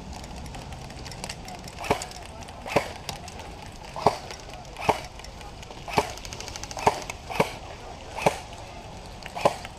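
Airsoft rifle firing single semi-automatic shots, about nine sharp cracks spaced roughly a second apart.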